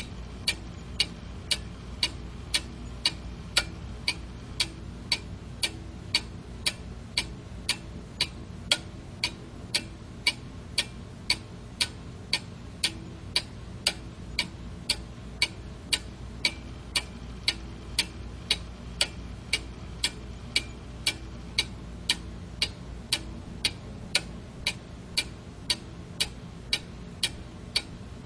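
Quartz alarm clock ticking steadily, about two sharp ticks a second, over a faint low hum.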